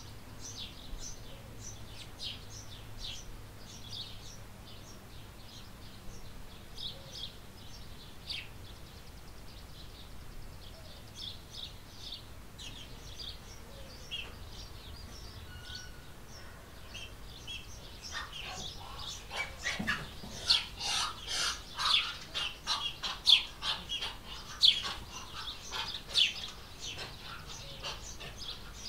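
Small birds chirping, many short high chirps overlapping; from about two-thirds of the way through, the chirping becomes much faster and louder for several seconds before easing off near the end.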